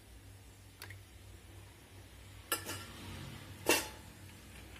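Oil poured into an empty steel kadai, then two sharp metallic clanks of kitchen utensils against the pan, about two and a half and three and three-quarter seconds in, the second louder.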